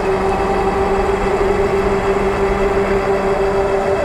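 Super73 RX electric bike cruising at a steady speed on asphalt: a steady motor hum mixed with wind rush and fat-tyre road noise.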